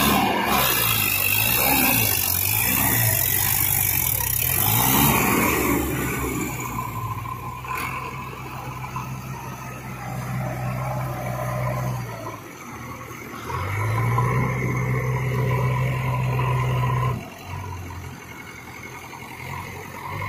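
Diesel engines of a Mahindra tractor and a JCB 3DX backhoe loader working under load as the tractor drags a loaded trolley through deep mud. The engine note rises and falls at first, then holds steady, and eases off twice: briefly about midway and for a few seconds near the end.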